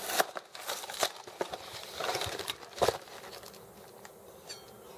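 Cardboard fruit-snack box being torn open at its tab and the lid flap pulled back: a string of short cardboard rips and scrapes, the sharpest near three seconds in, then lighter rustling.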